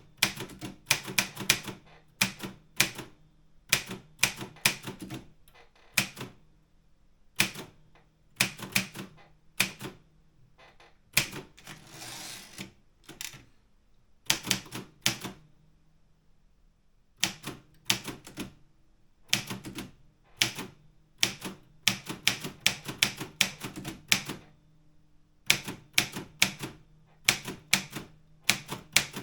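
Optima Elite 3 manual typewriter typing: fast clusters of sharp key strikes with short pauses between words. About twelve seconds in, a longer hissing sound of about a second breaks the run of strikes.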